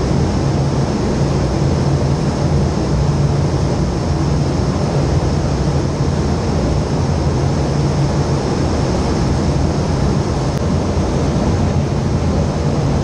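Vertical wind tunnel for indoor skydiving running: a loud, steady rush of air over a low, even hum from its fans.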